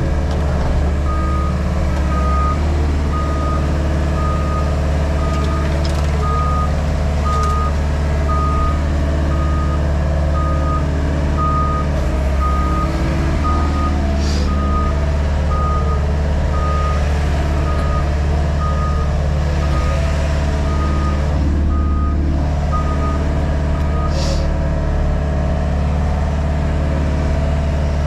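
Reversing alarm beeping on one pitch, a little more than once a second, over the steady running of the JCB Pothole Pro's diesel engine; the beeping stops a few seconds before the end. Two short hisses, one about halfway through and one near the end.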